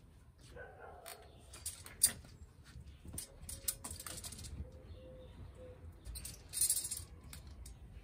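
Kitchen handling noises: scattered light clicks and knocks, the sharpest about two seconds in, and two short hissing, rustling bursts, one around four seconds in and one near the end.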